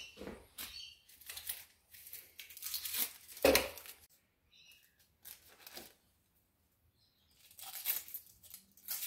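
Paper rustling and tearing in short, irregular bursts as a paper tissue and a strip of paper are handled and a knife blade is wiped, with one louder knock about three and a half seconds in.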